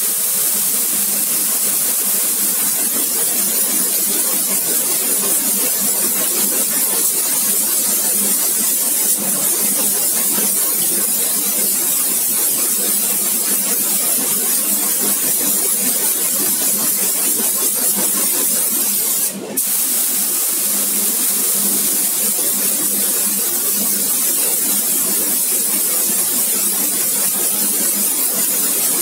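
High-pressure cleaning spray gun blasting a metal grill grate: a steady loud hiss, cut off for a moment about nineteen seconds in when the trigger is let go.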